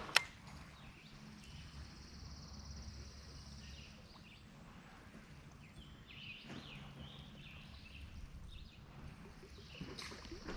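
Quiet outdoor river ambience with a low background rumble and a few faint bird chirps, after a single sharp click right at the start.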